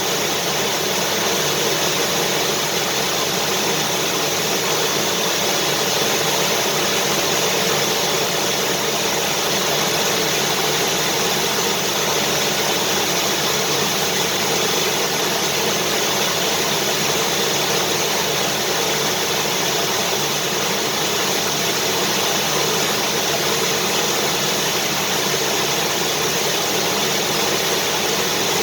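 Vacuum cleaner running steadily: an even, unchanging rush of noise with a faint steady tone in it.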